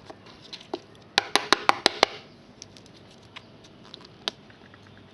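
A trading card being handled and repositioned on a tabletop: a quick run of about six sharp taps a little over a second in, with scattered small clicks and light handling noise.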